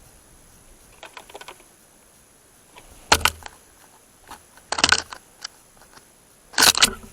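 A bird knocking and pecking at a feeder: a few light taps, then three louder clusters of sharp knocks about two seconds apart.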